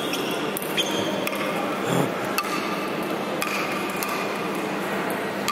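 Table-tennis ball being hit back and forth with paddles: a sharp click about once a second, with a short high ring after some of them, echoing in a large hall.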